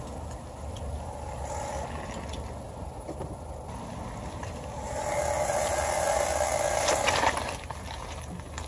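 Front end of a 2017 Honda Civic making a rubbing, screeching noise while the car is moving, over a steady low road rumble; the noise grows louder from about five seconds in until about seven. The owner traces it to the dry rubber CV axle boots rubbing.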